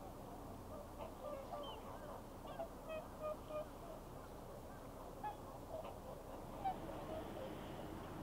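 Whooper swans calling on the water: short honking calls from several birds, scattered and overlapping, with a single louder call a little before the end, over a steady low background noise.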